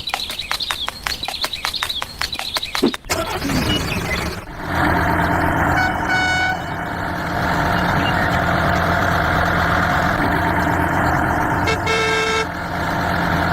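Rapid even ticking for about three seconds. Then a vehicle engine, likely a mini tractor's, runs steadily, with two short horn toots: one about six seconds in and one near the end.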